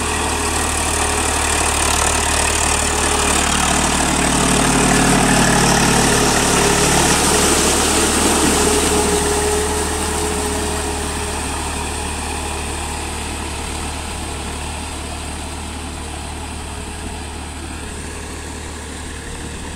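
Eicher 380 tractor's diesel engine running steadily as it pulls a rotavator through flooded paddy mud. It grows louder as the tractor passes close about five seconds in, then fades as it drives away.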